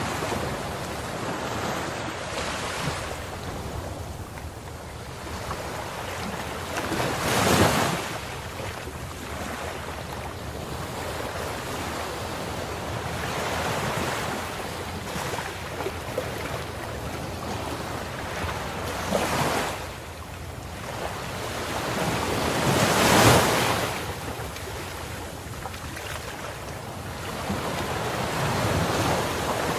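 Ocean surf: a continuous rush of waves, with three louder breakers crashing about 7, 19 and 23 seconds in.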